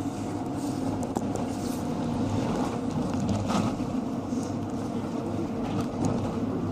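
Cabin sound of a Mercedes Sprinter diesel minibus on its route: the engine runs steadily under a haze of running noise, with a few light rattles and clicks.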